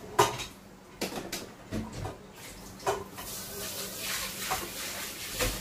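Cooking clatter: a metal utensil and pot lid knocking and clinking against a steel pot and dishes, several sharp clanks, the loudest just after the start. A steady hiss comes in about halfway through.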